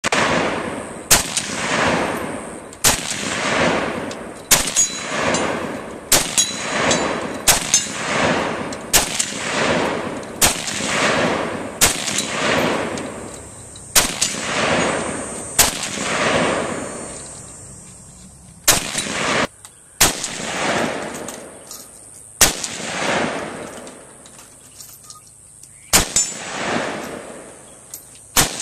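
Rifle fired in single shots, roughly one every second and a half, each crack followed by a long rolling echo. The pace slows past the middle, with gaps of about three seconds between some shots.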